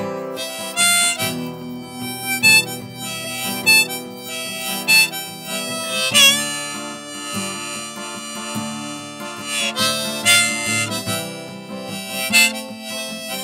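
Harmonica playing held, changing notes over a steady acoustic guitar accompaniment: the instrumental outro of a folk song after its last sung verse.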